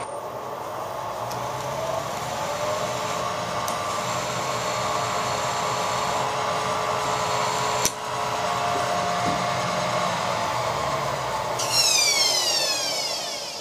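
Milling machine spindle running with a steady whine while a 3/8-inch drill cuts into a bronze casting, with one sharp click partway through. Near the end the whine slides steadily down in pitch as the spindle runs down.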